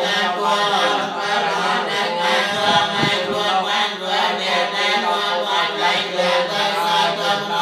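Theravada Buddhist monks chanting together, several voices in a steady, unbroken chant.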